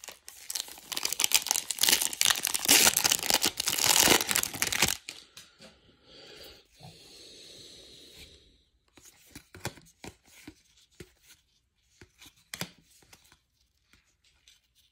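A baseball card pack's wrapper being torn open and crinkled for about five seconds. After that come softer rustling and light scattered clicks as the cards are pulled out and flicked through.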